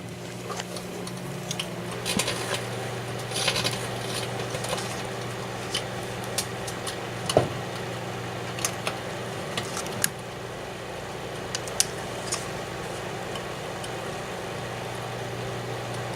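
Daewoo microwave oven running with a steady low hum, with irregular sharp crackles and pops through it: electrical arcing from the alarm clock's metal and electronics being microwaved.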